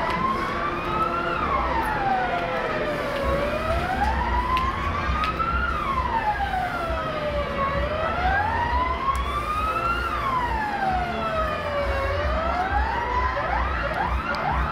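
Siren wailing, a slow rise and fall about every four seconds, changing to quick repeated upward sweeps near the end, over a steady low rumble.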